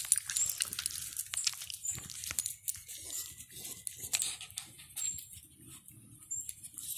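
Small dog making vocal sounds while being petted, with its metal collar tags clicking now and then.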